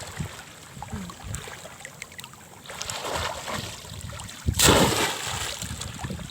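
Shallow water sloshing, with one loud splash about four and a half seconds in that dies away over a second, as a bamboo polo basket trap is plunged down into the water.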